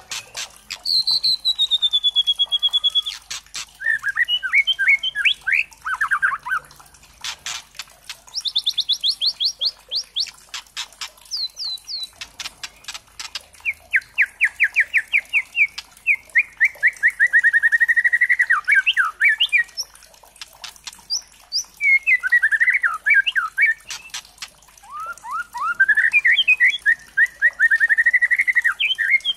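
White-rumped shama (murai batu trotol) calling in bouts of fast rattling trills and rapidly repeated notes, with a falling whistle near the start and sharp clicks between phrases, broken by short pauses. It is a lure call (pancingan) meant to provoke other shamas into singing.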